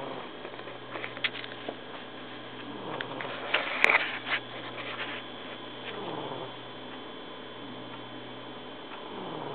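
Egyptian Mau cat snoring in its sleep, a rasping breath that comes back about every three seconds, four times in all. A few sharp clicks cut across it, the loudest cluster about four seconds in.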